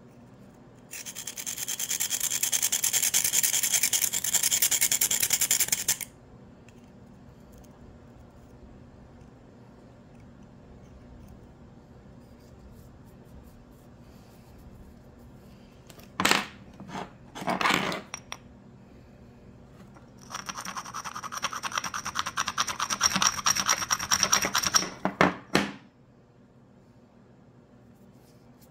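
A metal tool scraped hard against a rough stone, presented as pink diamond rough, in a scratch test of its hardness. A rasping run of about five seconds comes first, then two short strokes, then another run of about five seconds that ends in a few separate strokes.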